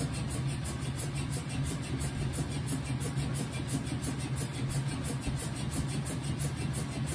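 Whirlpool washing machine running partway through a cycle: a steady low motor hum with an even wash of machine noise over it.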